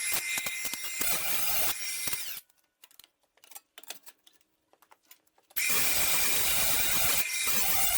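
A power tool running with a steady high whine. It stops about two and a half seconds in, leaving a few light clicks and knocks, then starts up again about five and a half seconds in.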